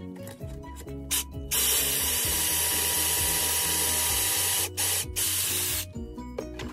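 Cordless drill boring a pocket hole in wood through a pocket-hole jig. It runs for about three seconds, pauses briefly, then runs again for under a second before stopping. Background music plays underneath.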